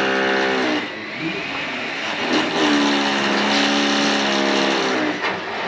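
Cordless drill motor whining at a steady pitch, running in two bursts: it stops about a second in and starts again about two and a half seconds in for another two and a half seconds, as it drives fasteners into the aluminium bottom track of a lanai enclosure.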